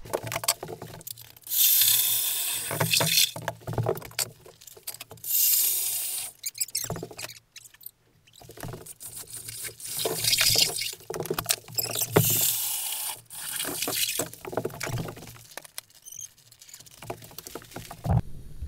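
Ice auger boring through lake ice, heard as several bursts of grinding and gushing slushy water, each a second or two long.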